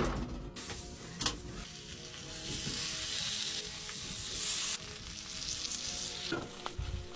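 Food sizzling as it fries in a skillet, a steady hiss that grows louder about two and a half seconds in and eases off about six seconds in, with a single click about a second in.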